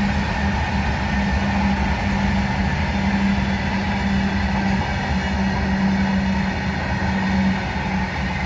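Indian Railways diesel train running: a steady, loud rumble with a steady low hum, easing slightly near the end.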